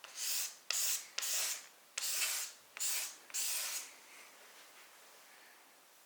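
Six rubbing strokes across the wax-filled surface of an end grain wooden cutting board, each about half a second long, in the first four seconds.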